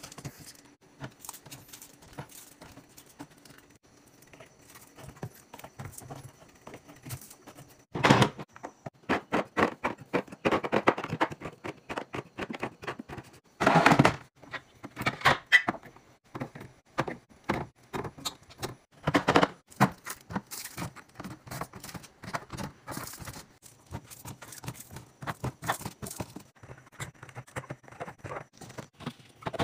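Small paper drink cartons being set down, pushed and slid into place on refrigerator shelves and in clear plastic bins: irregular taps, knocks and scrapes, with a few louder thunks about 8, 14 and 19 seconds in.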